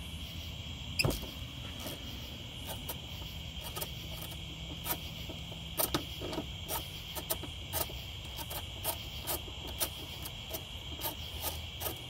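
Hand ratchet clicking in short irregular runs as it works a Mazda Miata seat-rail bolt, with a sharper knock about a second in. Crickets chirp steadily in the background.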